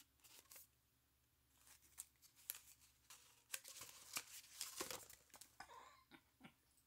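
Faint rustling and crinkling of box packaging being handled, with scattered small clicks and taps, busiest in the middle few seconds.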